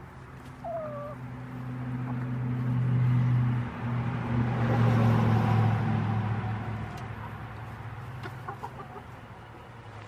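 Chickens clucking over a low hum that swells for several seconds and then fades.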